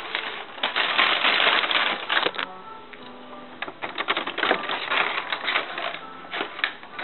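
A brown paper bag crinkling, then a rapid run of small clicks and clinks as pieces of a broken frosted-glass candle lamp shade are handled and swept together on a tabletop.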